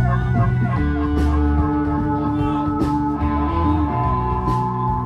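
Live blues-rock band playing an instrumental passage, with electric guitar, bass and drums.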